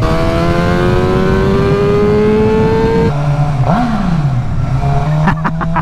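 Suzuki GSX-R600 inline-four engine accelerating under the rider. Its pitch climbs steadily for about three seconds, then drops sharply as it shifts up a gear, and it runs on at a steadier, lower pitch.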